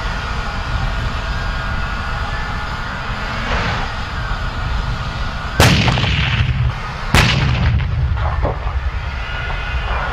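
M1A2 Abrams tank running, a steady rumble with a thin turbine whine, while two heavy gun shots ring out a little past the middle, about a second and a half apart, each followed by a rolling echo.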